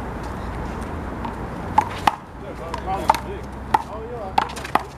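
A handball rally: a big blue rubber ball slapped by hand and smacking off the wall and court in a string of about six sharp hits, starting a little under two seconds in.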